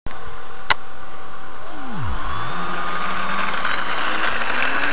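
Brushless electric motor of a radio-controlled Cessna model airplane whining, its pitch sinking away about two seconds in and then climbing steadily as the throttle is opened, over a steady hiss. A single sharp click comes near the start.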